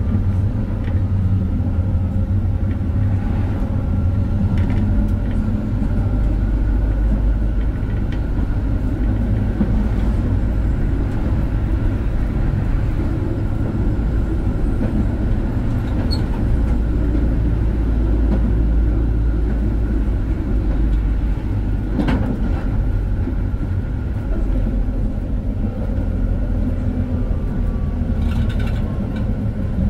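Konstal 105Na tram running along the track, heard from the driver's cab: a steady low rumble with faint whining tones over it, and a single sharp knock about 22 seconds in.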